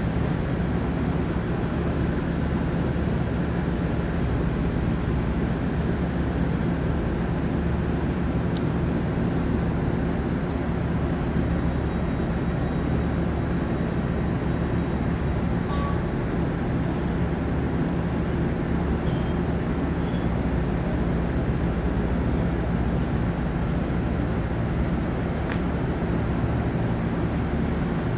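TRA DR3000 diesel multiple unit standing at the platform with its engines idling: a steady low drone. A faint high whine cuts off suddenly about seven seconds in.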